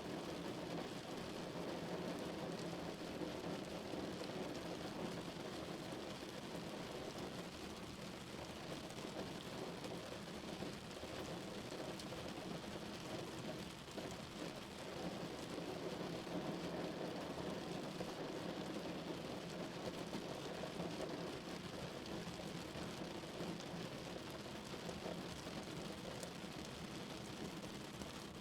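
Steady rain drumming on a car's roof and body, heard from inside the cabin.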